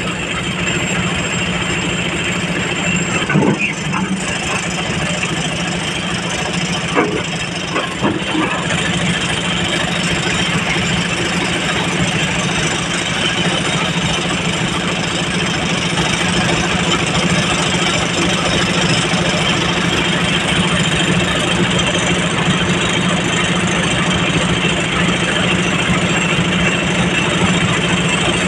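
Heavy machinery engine running steadily, with a few sharp knocks in the first eight seconds.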